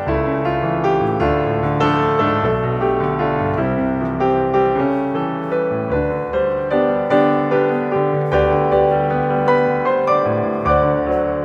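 Background piano music: a flowing melody of struck notes that ring and fade, over a sustained bass.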